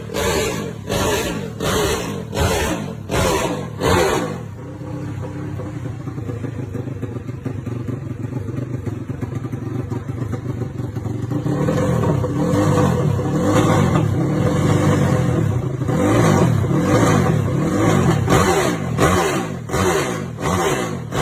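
Engine of a Honda Sonic drag bike built to 500cc, blipped on the throttle in quick repeated revs, then settling to a steady idle about four seconds in. From about eleven seconds on it is revved again in rising and falling sweeps and quick blips.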